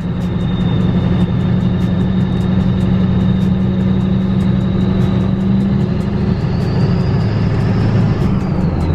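Duramax diesel pickup running on the move, a steady low engine note with a thin high whine over it. About six seconds in the engine note drops lower, while the whine climbs in pitch and then falls away near the end.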